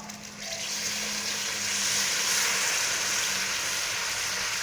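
Hot oil and fried masala in a karahi sizzling as yogurt goes in, a steady hiss that starts about half a second in and swells.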